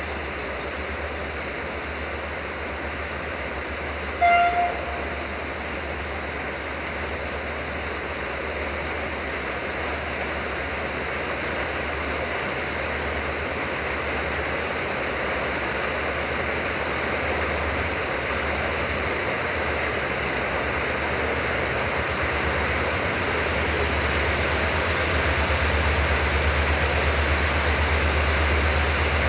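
Diesel train running steadily and growing gradually louder, with a deep low hum building toward the end. One short horn toot sounds about four seconds in.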